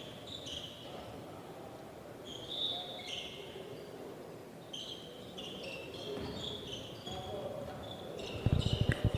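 Basketball shoes squeaking on a hardwood court in many short high squeals over a low crowd murmur, with a basketball dribbled in a quick run of thumps near the end.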